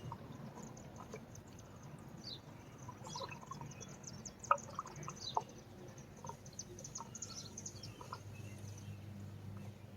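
Small birds chirping, many short high chirps scattered throughout, some sweeping down in pitch, over a faint steady low background noise.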